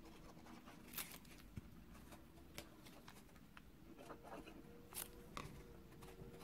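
Near silence with faint handling sounds: cardstock rustling and a few light clicks and taps from the liquid glue bottle and card panels being pressed together, the clearest about one second in and about five seconds in.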